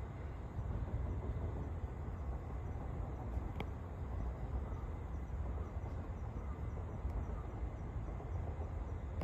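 Steady low outdoor background rumble, with a single faint click about three and a half seconds in.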